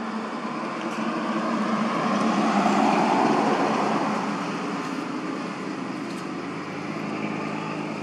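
A motor vehicle passing by, its engine and road noise swelling to a peak about three seconds in and then fading.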